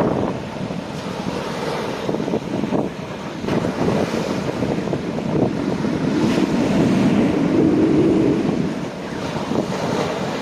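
Waves washing onto a beach, swelling and easing, with strong wind buffeting the microphone.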